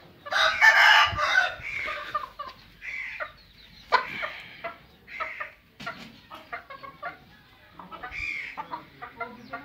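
Young chickens clucking and calling over and over, with one loud call lasting about a second, about half a second in.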